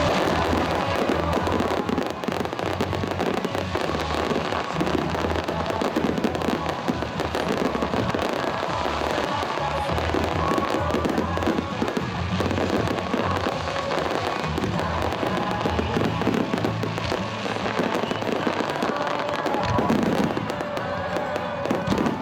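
Fireworks bursting and crackling in a dense, continuous barrage, with music playing underneath.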